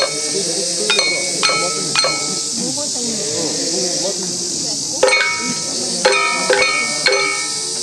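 Small metal gongs of a Kūya nembutsu dance struck with mallets. There are a few ringing strikes about half a second apart, then voices chanting for about three seconds, then four more strikes. A steady high hiss runs underneath.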